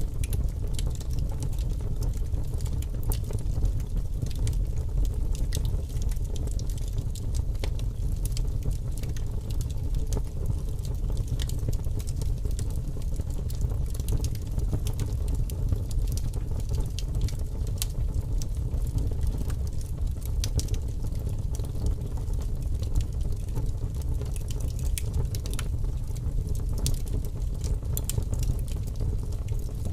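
Fire burning: a steady low rumble of flames with frequent sharp crackles and pops throughout.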